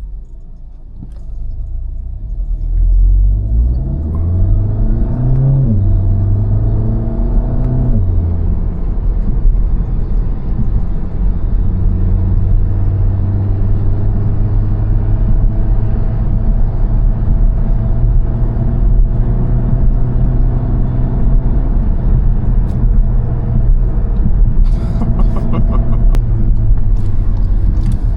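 Tuned Volkswagen Golf GTI's turbocharged 2.0-litre four-cylinder accelerating hard: the engine note rises, drops at a gear change about five seconds in, rises again to a second shift near eight seconds, then holds a steady drone at speed.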